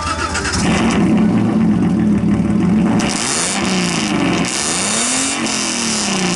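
Alfa Romeo 3.0 V6 engine swapped into a VAZ 2101, running loud and being revved, its pitch rising and falling several times in the second half.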